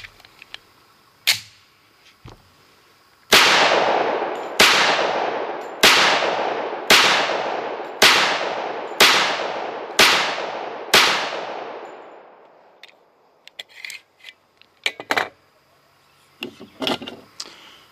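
Sig Sauer 1911 Fastback Nightmare pistol fired eight times at about one shot a second, each shot trailing off in an echo. A few short clicks come before and after the string.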